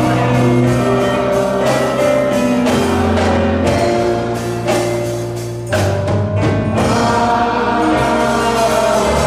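Men's choir singing a slow gospel hymn, backed by sustained bass notes and a steady drum beat.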